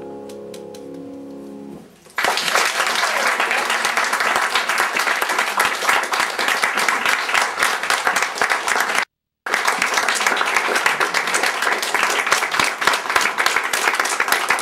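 The last chord on a grand piano dies away, then about two seconds in a small audience starts clapping and keeps on applauding. The sound cuts out for a moment just past the middle.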